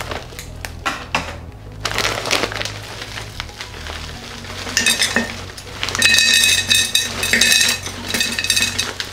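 Rock sugar crystals poured from a bag into a glass jar of frozen ume plums, clinking and rattling against the glass and plums. The clinks are densest and loudest from about six to nine seconds in, each one leaving a brief glassy ring.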